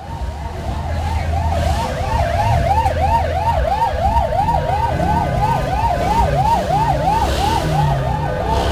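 Electronic vehicle siren in a fast yelp, sweeping up and down about three times a second, over the low rumble of motor traffic.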